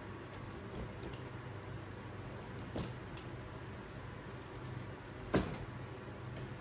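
Thin clothes hangers clinking lightly as they are gathered up and set down, with a small click a little under three seconds in and a sharper clack about five and a half seconds in, over a low steady hum.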